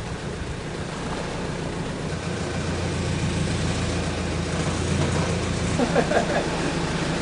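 Engine idling with a steady low hum, its deepest part dropping away just before the end.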